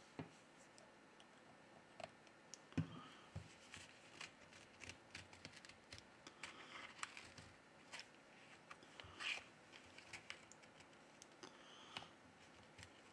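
Faint scraping and scattered small clicks of a plastic card sliding along the edge of a phone's back cover, cutting through the adhesive.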